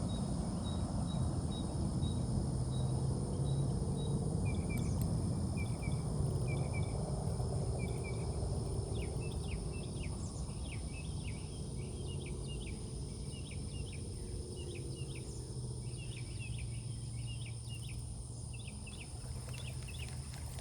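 Riverbank ambience: a steady low rush underneath, insects droning at a constant high pitch, and birds chirping in quick short notes, busiest from about halfway through.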